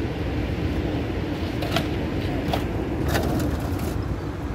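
Steady low rumble of machinery, with a few short knocks or clicks in the middle.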